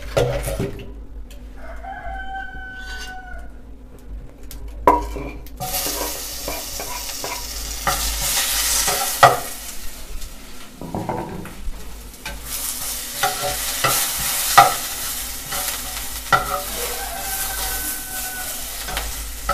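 Chopped onion frying in hot oil in a pan over a wood fire: a loud sizzle that starts about six seconds in, with the clack and scrape of a metal spatula stirring it. A rooster crows about two seconds in and again, fainter, near the end.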